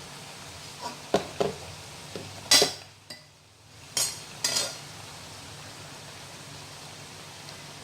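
Metal utensils clinking and knocking against cookware over a steady low hiss. There are a few light knocks about a second in, the loudest about two and a half seconds in, and two more about four seconds in.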